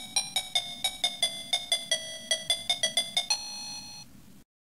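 Homebrew Z80 computer's sound circuit playing a simple electronic melody: a quick run of short notes, about six a second, each struck sharply and dying away. It ends on a longer held note, after which the sound cuts off abruptly.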